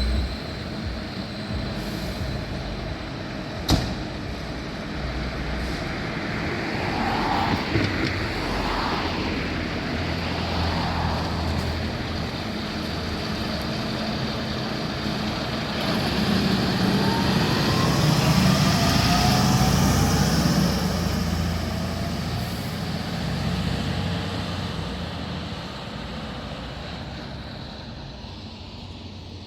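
Volvo fire engine driving away from the station. Its engine and road noise build to a peak about two-thirds of the way through, then fade.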